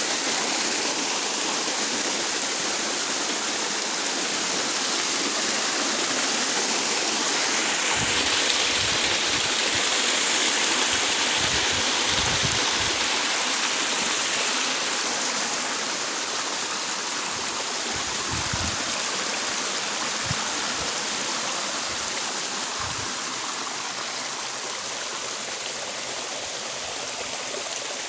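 Shallow rocky river rushing and splashing over boulders in a small cascade, a steady rush of water that grows a little quieter in the second half.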